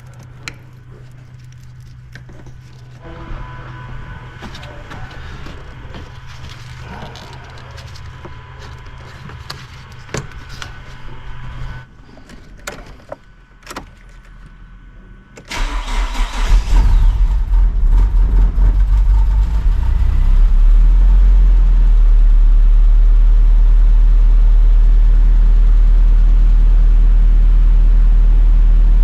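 Nissan CA18DET turbocharged 1.8-litre four-cylinder engine being started: it fires suddenly about halfway through, runs unevenly for a few seconds, then settles into a loud, steady idle. Before it starts there is a low steady hum with scattered clicks, which stops a few seconds before the engine fires.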